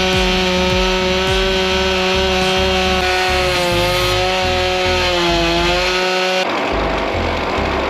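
Stihl MS 661 C-M chainsaw running at full throttle, ripping a big log lengthwise on a chainsaw mill. Its engine pitch sags and recovers twice as the chain loads in the cut, and the engine tone drops away shortly before the end.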